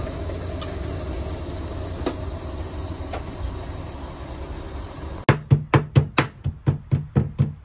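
A steady low rumble, then, about five seconds in, a knife chopping food on a cutting board in quick, even strokes, roughly four a second.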